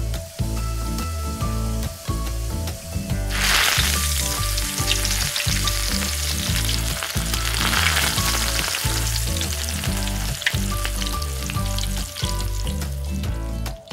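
Hot oil sizzling as a breaded minced-meat cutlet fries in a tiny pan. The sizzle starts suddenly about three seconds in, swells again around eight seconds and thins toward the end, over background music with a plucked melody and bass.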